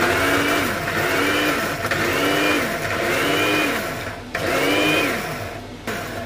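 Electric blade spice grinder running in pulses while grinding dried red chillies to a coarse powder. The motor whine rises and falls in pitch about once a second, five times over. It breaks off briefly after about four seconds and stops near the end.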